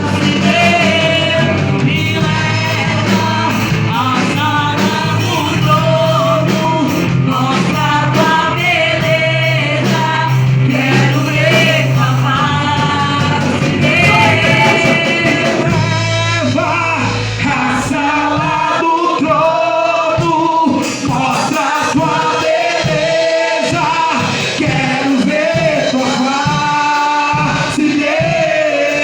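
Church praise band performing a worship song: singing over band accompaniment with a sustained low bass line and drums.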